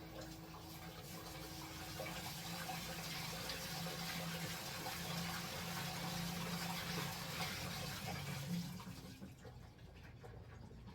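Water rushing and splashing inside the drum of an LG Black Label Plus T16MU top-loading washing machine, with a steady low hum underneath. The water noise dies away about nine seconds in.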